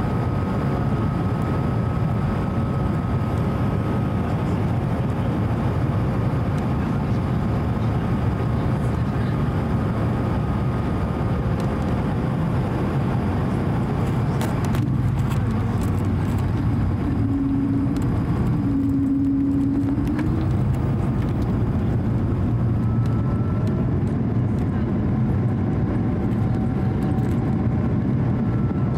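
Airbus A220-100 cabin noise from a window seat: the Pratt & Whitney PW1500G geared turbofans and the airflow make a steady roar with faint engine tones that shift slowly in pitch. A short change in the sound comes a little past the middle.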